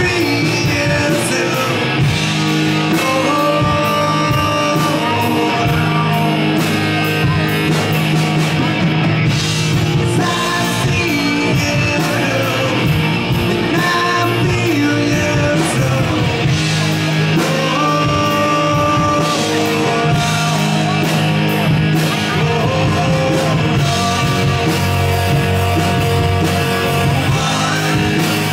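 Live rock band playing through a PA: a lead singer over electric guitars, bass and a steady drum beat.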